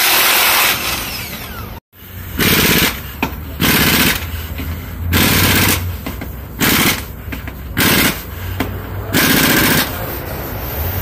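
A cordless impact wrench hammering on a wheel's lug nuts. After a brief break, an air impact wrench on the same kind of job rattles in about six half-second bursts, one lug nut after another.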